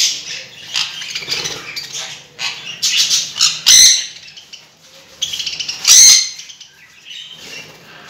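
Budgerigars chattering and chirping, with two much louder sharp squawks, one about four seconds in and one about six seconds in.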